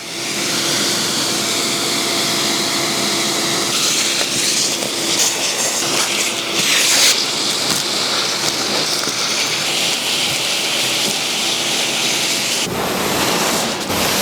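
A vacuum running steadily with a motor hum under a rushing hiss as it sucks leaves and debris off a car's exterior. The hiss grows brighter about four seconds in and the sound changes character near the end.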